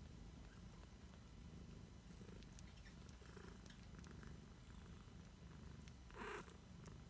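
A two-week-old kitten purring faintly, a steady low rumble, with one short breathy noise near the end.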